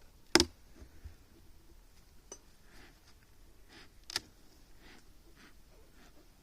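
Two sharp clicks, one about half a second in and one about four seconds in, with a fainter tick and a few soft taps between them.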